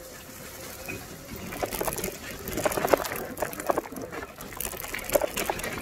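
Bicycle tyres rolling over a wet, muddy dirt track with water splashing, and irregular rattles and knocks from the bike jolting over bumps, busier from about a second and a half in.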